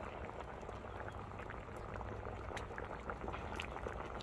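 Spicy mackerel and radish braise bubbling steadily in a wide pot, with many small pops and ticks as the sauce simmers down and reduces.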